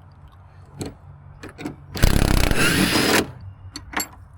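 A power tool runs in one loud burst of about a second, freeing a fastener at the boat's bow. Scattered light clicks and knocks of tools being handled come before and after it.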